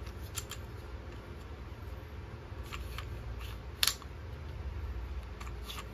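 Light clicks and ticks of small metal hand tools being handled, with one sharper click about four seconds in, over a steady low hum.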